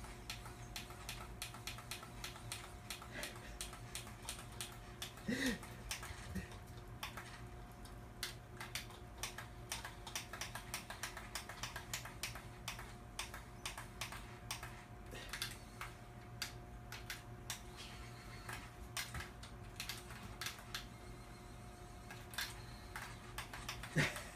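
Cats licking and lapping a lickable paste treat off a toy forklift: a dense, irregular patter of small wet clicks, with a short brief cry about five seconds in.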